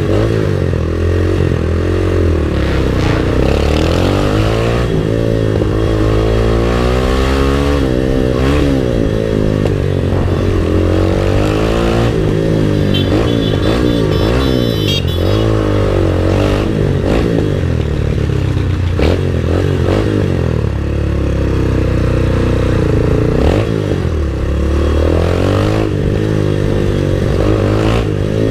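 MotorStar Explore 250 v2 motorcycle on its stock exhaust being revved over and over, the engine note climbing and dropping every second or two. A few sharp cracks come through now and then.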